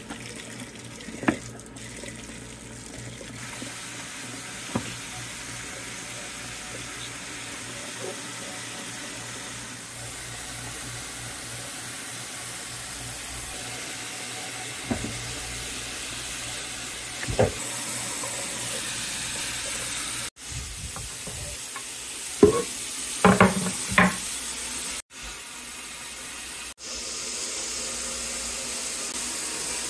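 Kitchen tap running into a plastic colander of carrots in a stainless-steel sink, a steady rush of water. A few short knocks and clatters come about two thirds of the way through.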